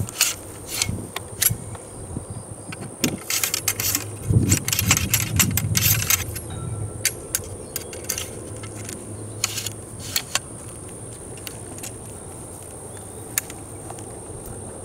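Light metallic clinks and rattles of an M1842 muzzle-loading rifle musket being handled and reloaded between shots, with the ramrod and lock parts knocking. The clinks come in scattered single ticks, thickest into a busy flurry about four to six seconds in, then thin out.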